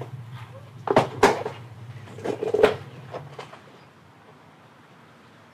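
Several sharp knocks and clatters, about a second in, again just after, and once more around two and a half seconds in, with some rustling between them, over a low steady hum.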